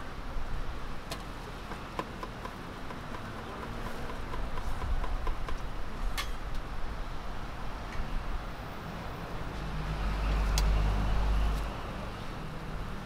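Noodles and vegetables sizzling on a flat steel griddle, a steady hiss, with street traffic rumbling behind; the low rumble swells about ten seconds in and drops off a second or so later. A few sharp clicks stand out.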